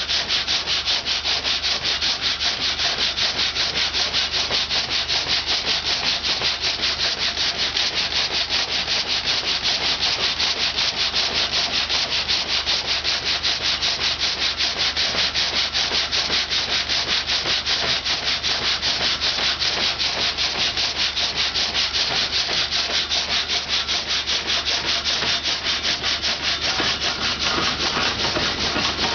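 Water-powered sawmill saw cutting through wood: a steady, rasping noise that pulses in a quick, even rhythm of strokes.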